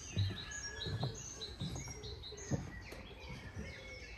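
Songbirds chirping and singing, many short high notes overlapping, with a few brief low thuds breaking in.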